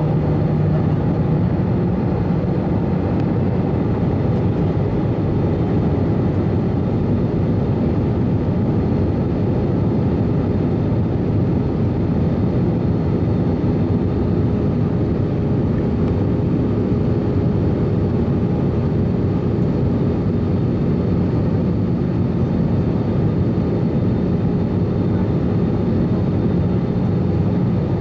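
Airbus A320 cabin noise on approach, heard from a window seat beside the wing: a steady rumble of the engines and rushing air, with a faint steady hum.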